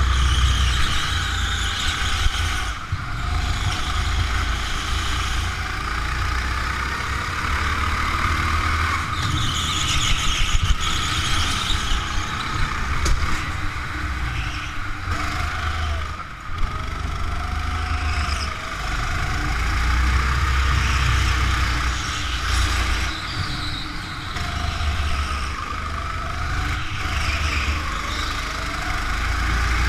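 Go-kart engine running hard, heard close up from the kart itself, its pitch rising and falling with the throttle through the corners, over a heavy low rumble that swells and fades.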